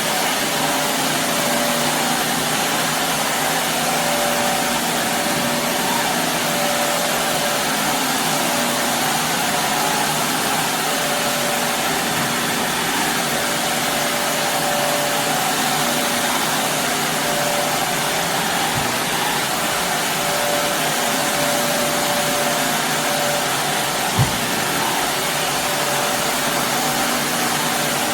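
Shark Navigator Lift-Away upright vacuum cleaner running steadily over carpet, a constant rushing motor noise with a steady whine. A single brief knock comes near the end.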